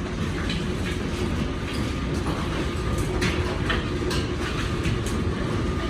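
Heavy earth-moving machinery running with a steady low rumble, with irregular metallic clanks and knocks over it.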